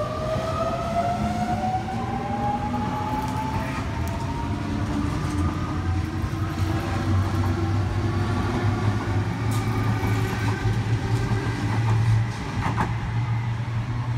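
Sydney Trains Waratah double-deck electric train accelerating away from the platform: the whine of its traction motors rises steadily in pitch over a steady low rumble of the cars rolling past.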